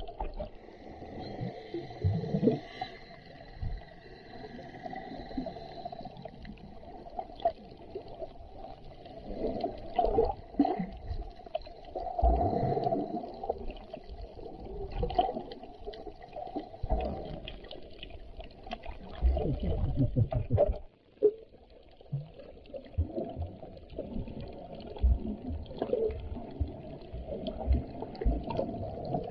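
Muffled underwater sound of water sloshing and knocking against a camera held below the surface while snorkeling, rising and falling in uneven swells. A faint high steady whine sounds for the first few seconds.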